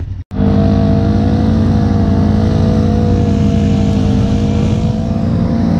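ATV engine running at steady high revs under load in thick mud, its pitch holding nearly constant, after a brief cut-out just after the start.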